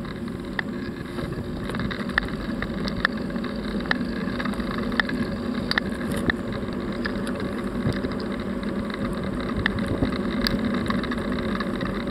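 Steady rush of a bicycle being ridden along, with wind on the microphone and tyre rumble, and light clicks roughly once a second.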